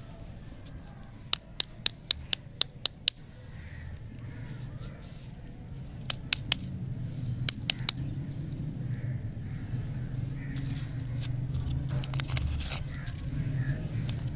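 Crinkly plastic lollipop wrapper handled and peeled open by hand: a quick run of sharp crackling clicks about a second in, more clicks around the middle and a denser crackle near the end, over a low steady hum.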